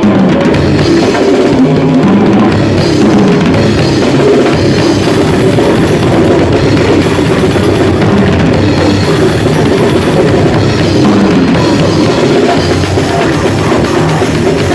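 Grindcore band playing loud, dense heavy music with a driving drum kit and bass drum.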